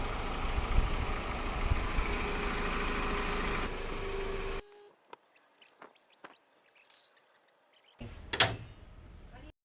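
1998 Toyota Camry's four-cylinder engine idling steadily, cutting off abruptly about four and a half seconds in. Then a few faint clicks and one brief loud knock near the end.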